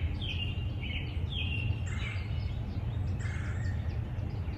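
Small birds chirping: a run of short, slightly falling chirps about twice a second, over a steady low rumble.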